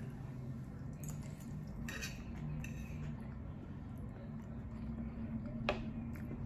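A metal fork clinking and scraping on a plate while food is scooped up and eaten, with a sharper clink near the end as the fork comes back down to the plate. A steady low hum runs underneath.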